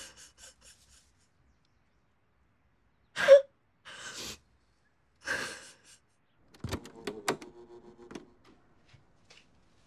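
Three breathy sounds, a person's sharp breaths and sighs, the first the loudest. Then a run of clunks and clicks as the piano-key buttons of a desktop cassette recorder are pressed, with a short hum as its mechanism engages.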